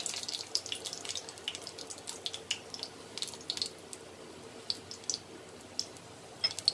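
Fennel seeds sizzling in hot oil in a steel kadai, frying as a tadka. It is a soft hiss with scattered crackles and pops that come thick at first and thin out later.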